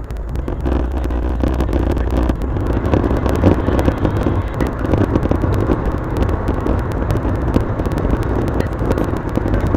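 Road and engine noise inside a moving car, a steady low rush broken up by many small clicks.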